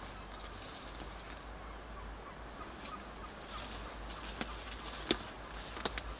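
Steady low rumble with a few sharp clicks or snaps in the second half, the loudest about five seconds in and two close together near the end.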